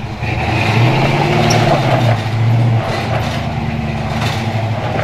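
Old Chevy pickup's engine working under load as the truck climbs a sandy bank. It pulls harder from just after the start until nearly three seconds in, then eases back to a steadier run.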